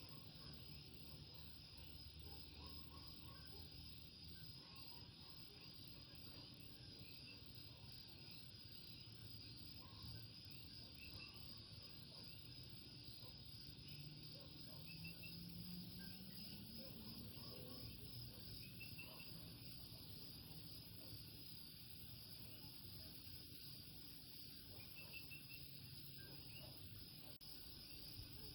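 Faint night chorus of Puerto Rican coquí frogs and insects: a steady high trill with scattered short two-note calls standing out now and then. A low hum rises in pitch briefly around the middle.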